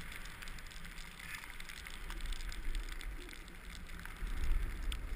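Edges sliding and scraping over packed, groomed snow as the filmer rides downhill, a steady crackling hiss, with wind rumbling on the microphone that grows louder near the end.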